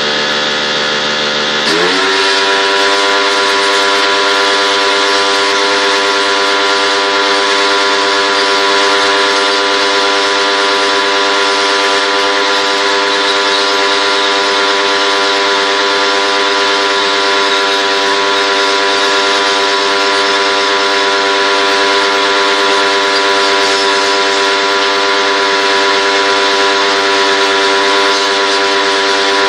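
Electric pressure washer motor and pump running, with a strong steady hum and spray hiss. About two seconds in its pitch glides up, then holds steady.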